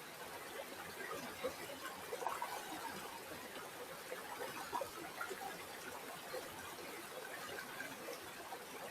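River water flowing in a steady babbling trickle, full of small quick splashes.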